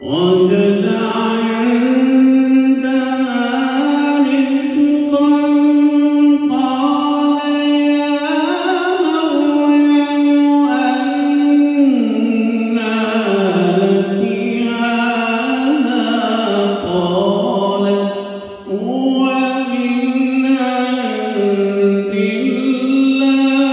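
A man reciting the Qur'an in melodic qirat style, holding long drawn-out notes that rise and fall slowly in pitch, with a short break for breath about eighteen seconds in.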